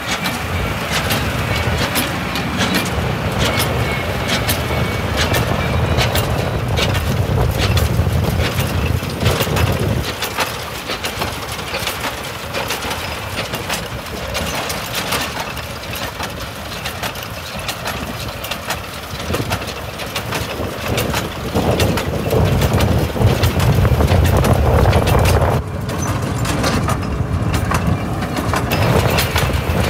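Tractor engine running while a New Holland square baler works vetch, with constant rapid clattering and knocking from the baler. The engine's low rumble is heavier for the first ten seconds, eases off, then swells again for a few seconds past the twenty-second mark.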